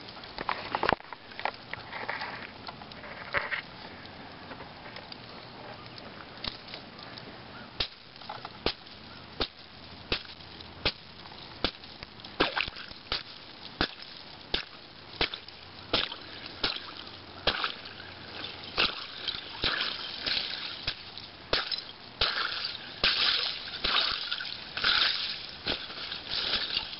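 Rotten honeycomb (candled) lake ice crunching and cracking in sharp snaps, one to two a second, with water sloshing. The snaps come thicker and louder over the last ten seconds. The sound is typical of late-season ice that is thin and breaking up.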